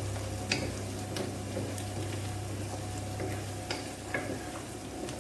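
Chicken sausage sizzling in a frying pan, with a utensil clicking against the pan several times as it is stirred. A steady low hum runs underneath.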